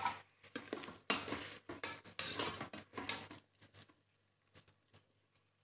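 Yellow plastic spatula stirring chopped tomatoes, onions and green chillies in an electric rice cooker's metal inner pot, with irregular scraping and clicking against the pot as the vegetables are turned for frying. The stirring is busiest in the first three and a half seconds, then only a few faint clicks follow.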